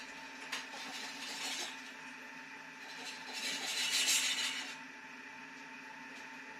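A utensil working in a pan of hot oil as fried ginger and green onion are lifted out: a click, then two spells of hissing, scraping noise, the second and louder one about three to five seconds in, over a steady background hum.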